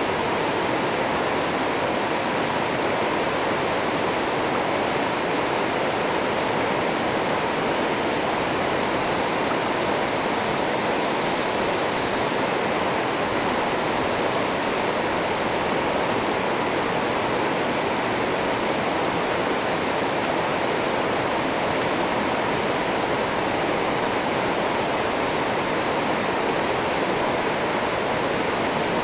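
River rapids: fast water rushing over rocks in a steady, even noise that never lets up.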